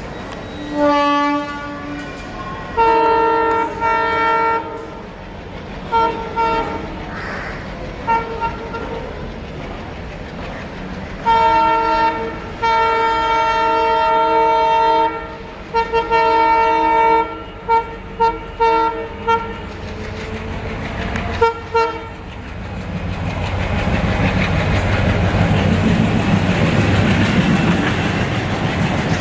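WDG3A diesel locomotive's horn sounding again and again, in short honks and in blasts held for several seconds, many of them in quick succession. In the last several seconds the train draws near and passes, a rising rumble with wheels clattering over the rail joints.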